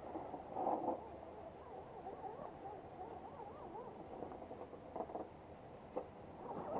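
Electric drive motors and geared drivetrains of scale RC rock crawlers whining, the pitch wavering up and down with the throttle as they climb, with a few short louder spurts about a second in and again near the end.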